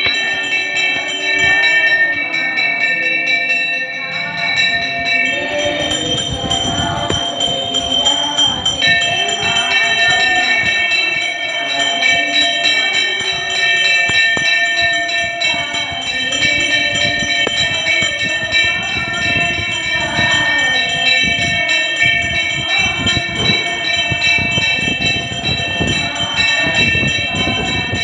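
Aarti being sung, with a bell ringing steadily throughout and a rhythmic beat underneath.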